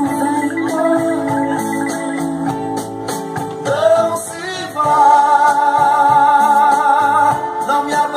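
A man singing into a handheld microphone over accompanying music with a steady beat, holding one long note from about five seconds in.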